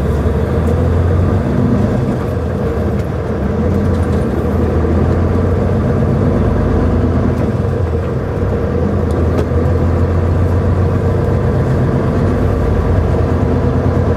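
Volvo semi-truck's diesel engine running steadily as the truck pulls away at low speed, heard from inside the cab as a low, even drone.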